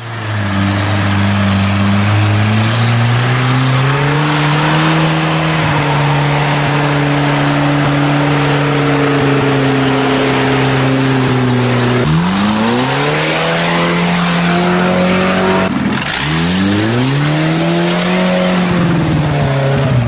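Off-road 4x4 engine working in mud and snow: steady at first with its pitch stepping up about four seconds in, then revved twice in the second half, rising and falling each time, over a steady rush of tyres in mud.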